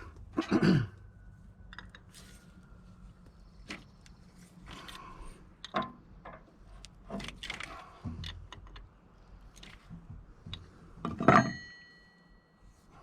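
Hand tools and air-line fittings clicking and clinking during work on a truck's air lines, with a louder metal clank near the end that rings on briefly.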